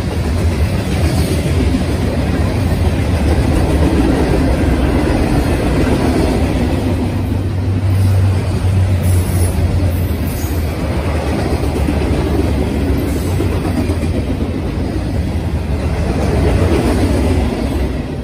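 Freight train cars (covered hoppers, tank cars and boxcars) rolling past close by, a steady loud rumble of steel wheels on rail that drops away right at the end as the last car goes by.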